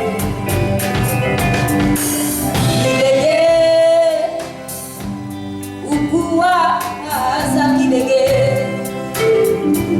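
Live band playing a song at a sound check: sung vocals over a steady drum beat.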